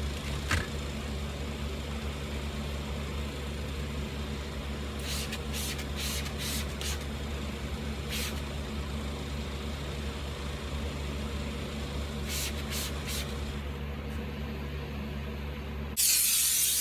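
Trigger spray bottle squirting cleaner in several short hisses: a quick run of about five, a single one, then three more, over a steady low hum. Near the end a McCulloch steam cleaner starts a loud, continuous hiss of steam.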